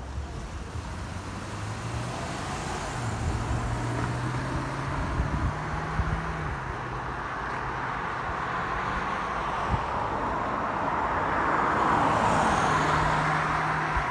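Road traffic on a wide street: a passing car's engine and tyre noise swells slowly to its loudest about twelve seconds in, then eases, over a low steady hum.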